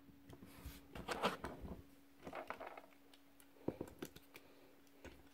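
Faint plastic clicks and rubbing as a toy missile is handled and pushed back into the spring-loaded launcher in a Transformers figure's fist, with a faint steady hum underneath.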